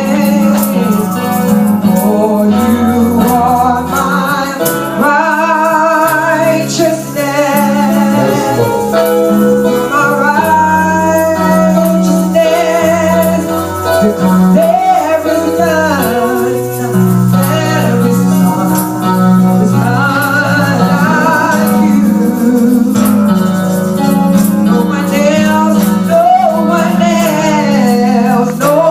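Worship song: singing with vibrato over a band with steady bass notes and tambourine.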